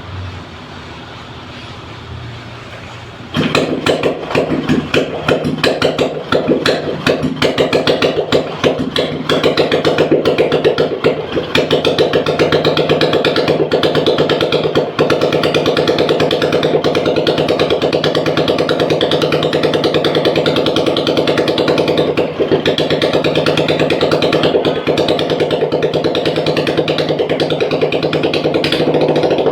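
Royal Enfield Bullet's single-cylinder engine running with a rapid, even tapping, the knocking of the valve tappets. It gets suddenly much louder about three seconds in.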